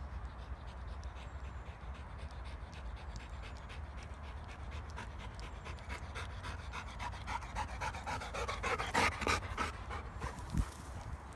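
Labrador retriever panting in quick, even breaths, growing louder from about halfway and loudest near the end, with a single low thump just before it ends.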